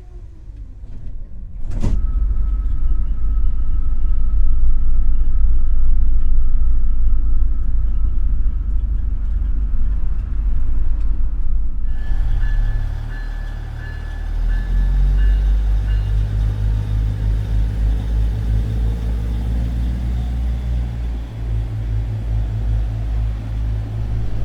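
Arlanda Express X3 high-speed electric train running with a loud, steady low rumble and a faint steady tone, with a sharp knock about two seconds in. About halfway through it cuts to a UP Express Nippon Sharyo diesel multiple unit, its diesel engine running with a pulsing low throb.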